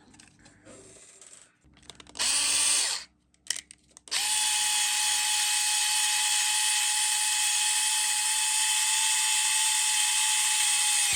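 Power drill boring an access hole through a personal cassette player's case: a short burst about two seconds in, then a steady run at a constant whine from about four seconds on.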